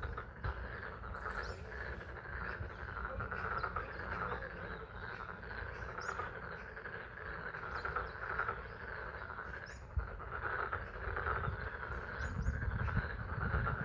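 A chorus of many frogs calling at a pond: a dense, steady, pulsing trill with rain falling. Brief high bird chirps come through a few times.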